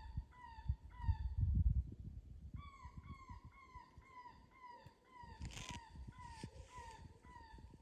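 ICOtec electronic predator call playing a prey distress sound from about 40-50 yards away: a steady series of short, falling squeals, about three a second, that steps slightly higher in pitch about two and a half seconds in. Low rumbling early on and a brief rustle near the end.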